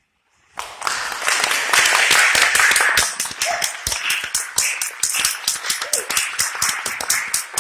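Audience applauding, starting suddenly about half a second in after a silence, a dense wash of clapping that thins toward more separate claps in the second half.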